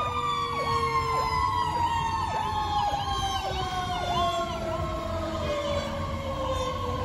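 Fire engine sirens: an electronic siren yelping about twice a second over a second siren whose tone winds down, falling slowly in pitch. Tyre hiss from the wet road runs underneath.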